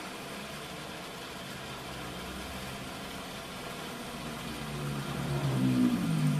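Metal lathe running with a motorcycle cylinder head spinning in the chuck while a carbide tool cuts its combustion dome. A steady machine noise, with a low hum that swells louder over the last couple of seconds.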